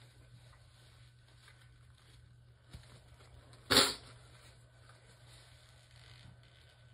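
A woman sneezes once, uncovered: a single short, loud sneeze a little past halfway through, over a faint steady hiss.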